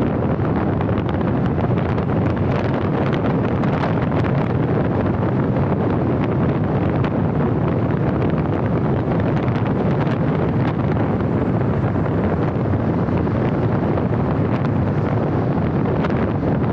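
Steady wind rushing over the microphone of a camera on a moving car, mixed with the car's tyre and road noise.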